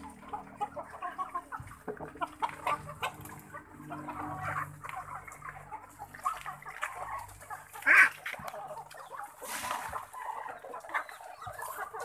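A flock of poultry clucking and calling, with one loud squawk about eight seconds in.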